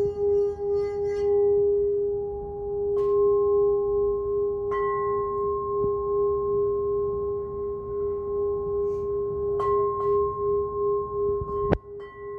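Alchemy crystal singing bowls ringing in G sharp: one strong, steady tone sounds throughout with a slow wavering pulse. Higher bowl tones join after light strikes about three and five seconds in, with further strikes later and a sharp knock near the end.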